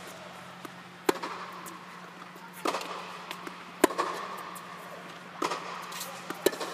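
Tennis rally: sharp pops of rackets striking the ball and the ball bouncing on the hard court, about five in all. The loudest is a forehand struck close by a little under four seconds in. A steady low hum runs underneath.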